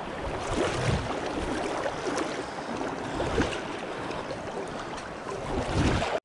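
Kenai River water rushing steadily, with a few low thumps.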